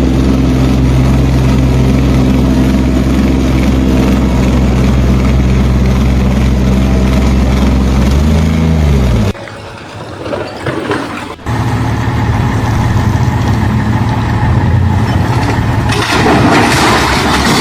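A heavy engine running steadily, its pitch briefly rising and falling about eight seconds in before it cuts off. After a short quieter stretch another engine runs steadily, and near the end a loud rushing noise sets in.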